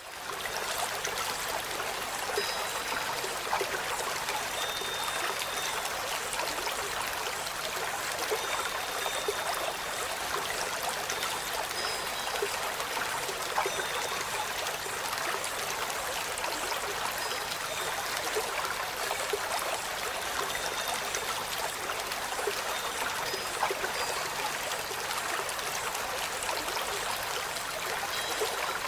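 Steady running water like a stream or trickle, an even rushing hiss with no breaks. Now and then a faint, brief high peep sounds over it.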